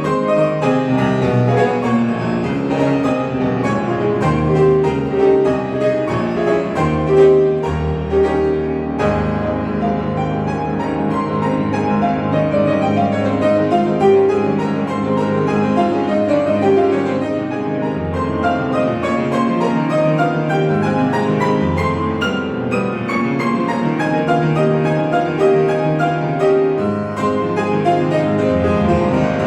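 Solo piano playing classical music: a continuous, dense stream of notes without a break.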